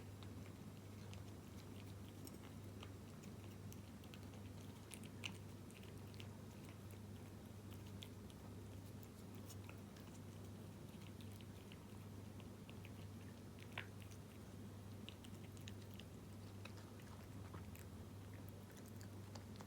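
A cat chewing wet food in jelly: faint, irregular wet clicks and smacks of its mouth, with two sharper clicks about five and fourteen seconds in. A steady low hum runs underneath.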